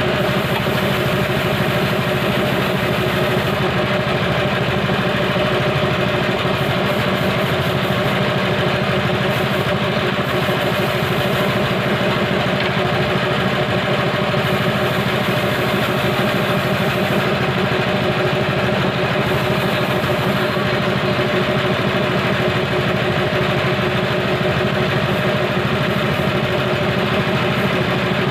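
Ryu small petrol engine idling steadily, with its carburettor reset to the standard setting.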